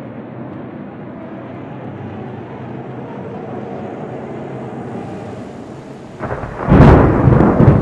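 A low, steady rumble, then about six seconds in a loud thunderclap: a sudden crash with sharp cracks.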